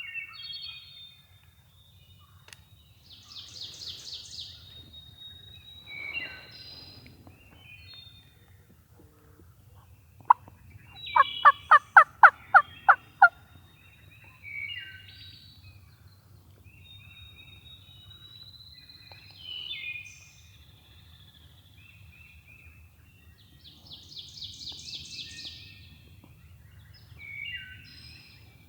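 Wild turkey sounds: a loud run of about nine sharp yelps, each falling in pitch, about ten seconds in. Songbirds chirp and trill around it.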